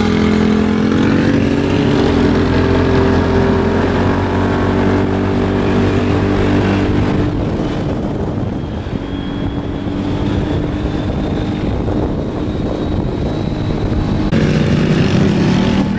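Side-by-side UTV engine running steadily as it drives along a paved road, heard from inside its open cab; the engine note shifts in pitch a few times.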